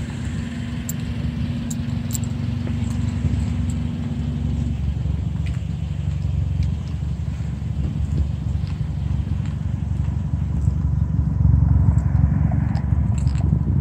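2017 Volkswagen Jetta 1.8 TSI turbocharged four-cylinder idling with its muffler deleted: a steady low exhaust rumble. It grows louder near the end, heard up close at the tailpipe.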